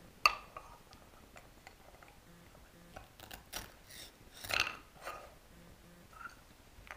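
Wooden toy knife and wooden play vegetables knocking and clicking against a wooden cutting board: one sharp knock about a quarter second in, then a scatter of lighter clicks from about three seconds in, the loudest cluster about four and a half seconds in.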